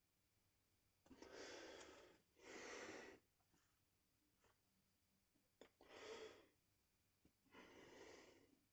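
A man's breathing: four breaths of about a second each, two in quick succession about a second in, then two more around six and eight seconds in.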